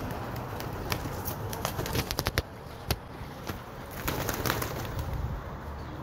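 A flock of pigeons feeding on rice on a window ledge: cooing and wing flaps, with clusters of sharp pecking taps about two seconds in and again around four seconds in.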